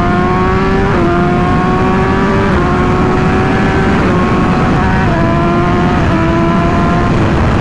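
2021 BMW S1000RR M Package inline-four engine pulling hard under full acceleration. Its pitch climbs steadily and drops slightly at several quick upshifts, about one a second, over heavy wind noise.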